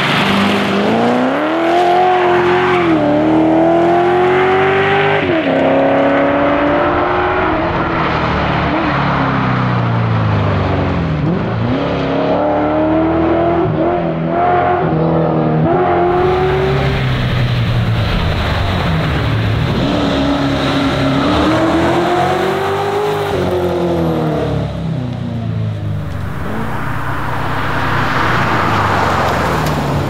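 2002 Ford Falcon Pursuit 250 ute's V8 engine, driven hard as a rally car. It accelerates through the gears, its pitch climbing on each gear and dropping at every upshift, over several runs.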